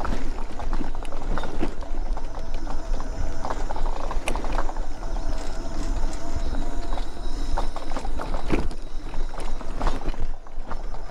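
Mobility scooter riding over a bumpy dirt trail: a steady wind rumble on the microphone, with frequent knocks and rattles as it jolts over the ruts and a faint motor whine for a few seconds midway.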